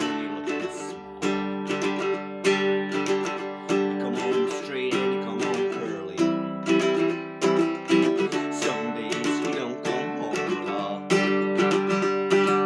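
Baritone ukulele strummed in a steady pattern, working through G, C and D chords.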